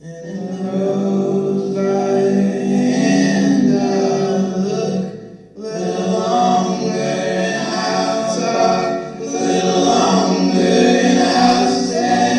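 Background music: voices singing sustained chords together, like a choir, with a short break about five and a half seconds in.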